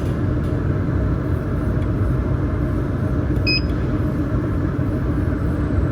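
Industrial water chiller running with a steady low hum, just after being powered on. A short electronic beep sounds about three and a half seconds in.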